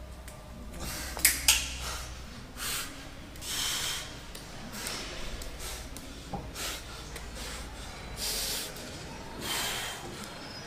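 A man panting hard after an all-out set of leg exercise taken to failure: loud, rough breaths, about one every second or so.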